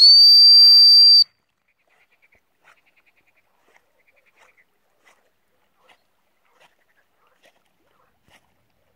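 A single long blast on a dog-training whistle: one steady, high-pitched tone lasting about a second that cuts off sharply. It is the recall signal calling the dog off its chase of a duck. Only faint, scattered small sounds follow.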